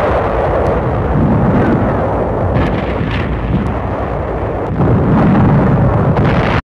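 Battle sounds of Marines' combat on Iwo Jima: a continuous rumble of explosions and shellfire with a few sharp cracks of gunfire. It cuts off abruptly at the end.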